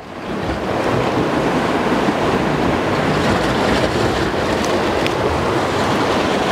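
Ocean surf washing against rocky shore: a steady rushing that swells up over the first second and then holds.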